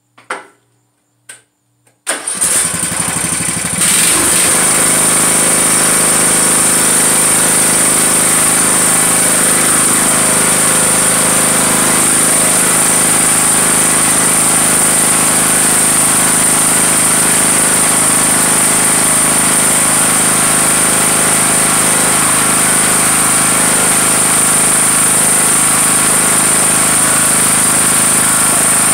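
Craftsman riding lawn tractor's four-stroke engine being started: a couple of clicks, about two seconds of starter cranking, then the engine catches and runs steadily with a steady high whine over it.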